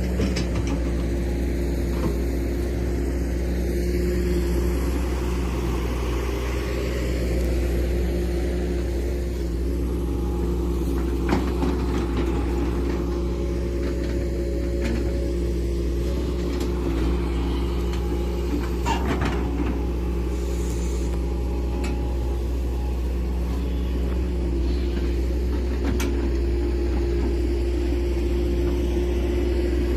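Hydraulic excavator's diesel engine running steadily, with a few sharp knocks along the way, about 11 and 19 seconds in.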